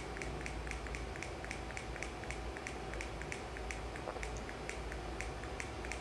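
Quiet room tone with a rapid, fairly regular ticking, about four ticks a second, over a faint low hum.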